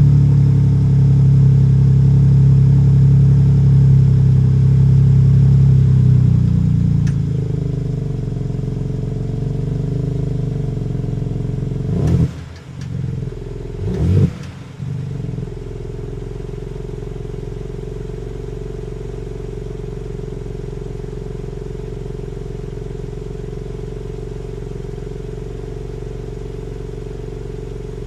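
BMW M3 Touring's 3.0-litre twin-turbo straight-six idling: a raised idle for about six seconds that then drops to a lower, steady idle. There are two short throttle blips about halfway through, a couple of seconds apart, and then it settles back to idle.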